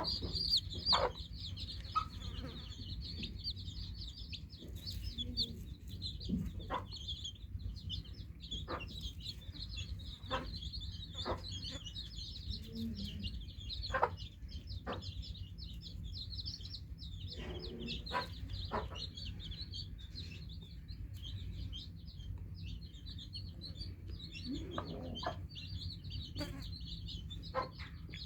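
A brood of newly hatched chicks peeping continuously, many high-pitched peeps overlapping without a break. Occasional short, lower clucks are mixed in over a steady low hum.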